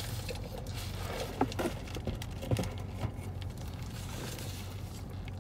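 Paper sandwich wrapper rustling and crinkling as a sandwich is unwrapped, with a few sharper crackles about one and a half and two and a half seconds in. A steady low hum runs underneath.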